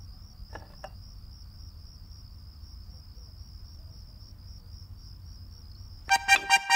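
A cricket chirping in a steady, rapid pulsing trill. Near the end, music with strummed guitars starts up.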